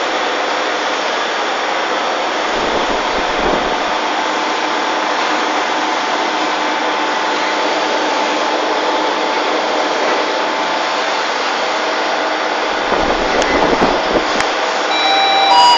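CNC electrical discharge machine (EDM) running while it erodes a thread into tungsten carbide: a steady hissing machine noise with faint humming tones, with a low rumble twice. Short musical notes come in near the end.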